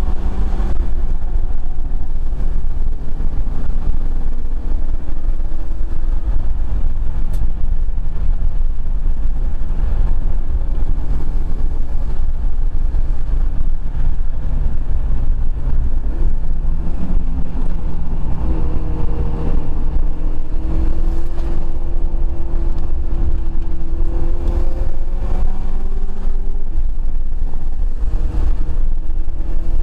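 Mitsubishi Lancer Evo V's turbocharged four-cylinder engine working hard at racing speed, heard from inside the car with the driver's window down. Its note rises and falls with throttle and gear changes over a heavy low rumble of wind through the open window.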